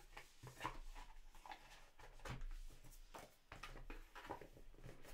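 Oracle cards and their cardboard box being handled on a table: soft irregular taps, slides and scrapes as the deck is squared and the box is picked up.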